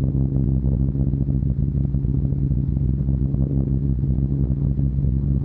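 Steady drone of a Short Stirling four-engined heavy bomber's piston engines in flight, an even low hum that does not change.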